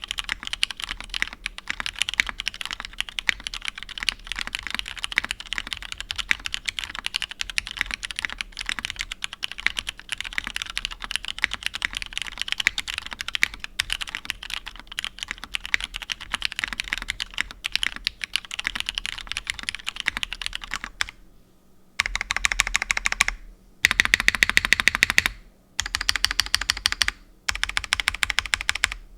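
Typing on a mechanical keyboard with lubed Cherry Hyperglide Black linear switches in an aluminium plate under Cherry doubleshot keycaps: steady, continuous keystrokes for about twenty seconds. After a brief pause come four short bursts of very fast keystrokes.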